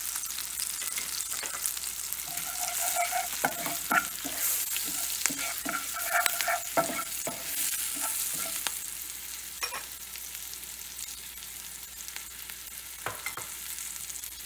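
A tempering of cumin, black pepper, ginger, green chillies and turmeric sizzling in hot ghee and sesame oil, stirred and scraped around the pan with a spatula. The sizzle and scraping are busiest in the first half and ease off after about eight seconds.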